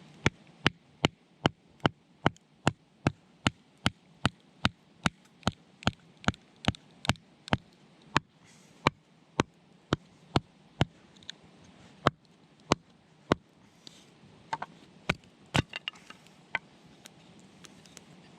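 Sharp knocks in a steady rhythm, about two and a half a second for some seven seconds, then slower and irregular, with a few lighter clicks among them near the end.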